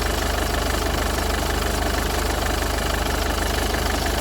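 Mercedes-Benz OM651 2.1-litre four-cylinder turbodiesel idling steadily, shortly after starting, with an even diesel clatter.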